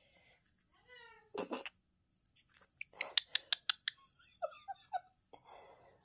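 Cockatiel calling and chattering: a short rising call, then a brief harsh squawk. About three seconds in comes a quick run of sharp clicking notes, followed by a few short chirps.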